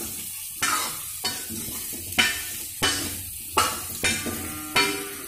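Steel ladle stirring pumpkin pieces and ground spices in a frying pan: the ladle scrapes and knocks against the pan about seven times, over a steady sizzle of the vegetables frying in oil. This is the spices being mixed into the pumpkin.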